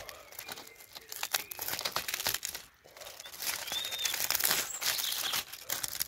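Aluminium foil crinkling and crackling as fingers peel a foil wrapping open, with a short lull about halfway through.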